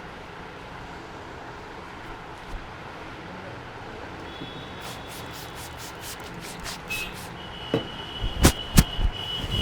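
Steady road traffic noise. From about halfway a steady high tone comes and goes, with a run of quick sharp clicks and, near the end, a few loud knocks.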